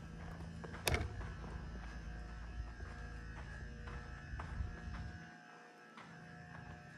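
Low steady buzz, with one sharp knock about a second in; the buzz drops away after about five seconds.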